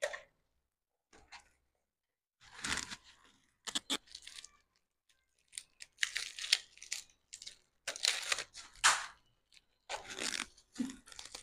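Packaging rustling and crinkling in irregular short bursts while parts of an LED ring light kit are unpacked and handled.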